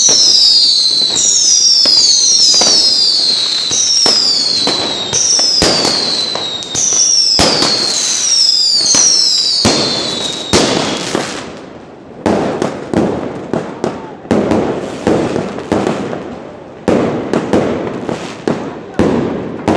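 New Year's Eve fireworks: for about the first ten seconds, whistling fireworks in quick succession, each a falling whistle, roughly one a second. After that comes a string of sharp firecracker bangs, each with an echoing tail.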